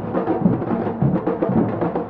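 Afro-Brazilian batuque percussion ensemble playing: many hand drums struck together in a dense, steady rhythm, with deep drum beats about twice a second.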